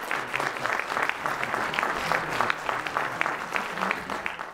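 Audience applauding, a dense run of many hands clapping that cuts off abruptly at the very end.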